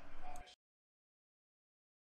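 Faint room noise that cuts off abruptly about half a second in, followed by complete digital silence.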